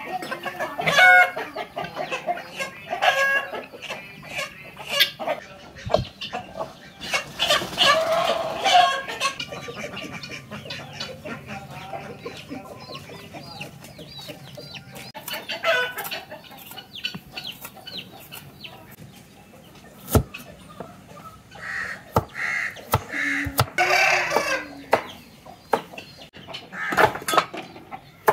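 Chickens clucking, with short repeated calls throughout and a few sharp knocks.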